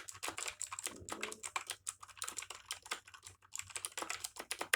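Mechanical keyboard with Outemu blue clicky switches being typed on: a rapid, uneven run of sharp clicks.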